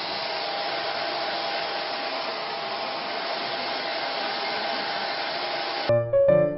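Handheld hair dryer blowing steadily, an even rush of air with a steady motor whine, as hair is blow-dried. It cuts off abruptly near the end and piano music comes in.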